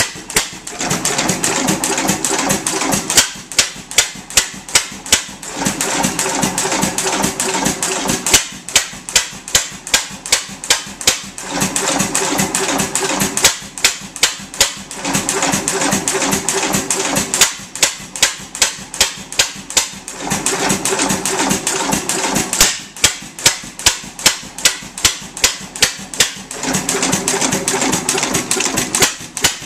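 3 1/2 HP Gould, Shapley & Muir hit-and-miss gas engine running, with sharp clicks from its valve gear about three a second. Every few seconds a fuller running sound comes in for a couple of seconds and drops away again, the engine firing a run of power strokes and then coasting on its flywheels under the governor.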